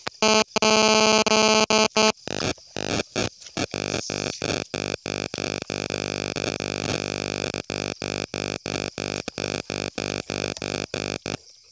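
Electronic synthesizer music: a sustained chord of steady tones, loud for the first two seconds and then somewhat quieter. It is chopped by many abrupt drop-outs that come about two or three times a second, and it cuts off suddenly near the end.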